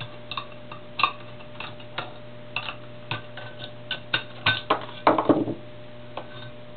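Light metallic clicks and taps of a screwdriver, screws and the spring-loaded regulator cover plate being worked off a transmission valve body. The clicks come a few at a time, then a louder cluster of clinks about four and a half to five and a half seconds in.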